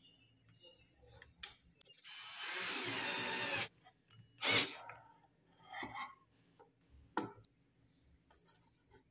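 Electric drill driver running for about a second and a half, driving a screw through a black frame into a wooden strip. It is followed by a short loud burst and a few light knocks and clicks.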